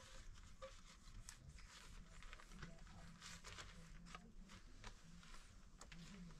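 Near silence with scattered faint small clicks and rustles: a knife cutting tomatoes over a plate.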